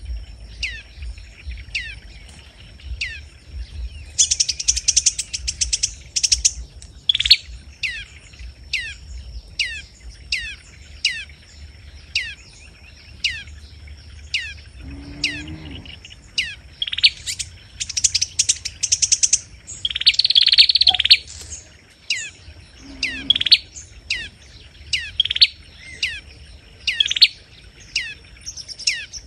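Sunbirds calling: a short sharp note sliding downward, repeated about once a second, broken twice by bursts of fast high twittering.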